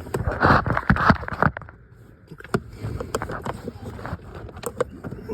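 A plastic cabin air filter being worked into its housing behind a car's glovebox: scraping and rustling for the first second and a half, then scattered light clicks and knocks of plastic.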